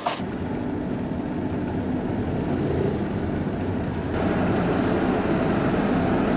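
Car driving, heard from inside the cabin: a steady engine and road rumble that gets a little louder about four seconds in.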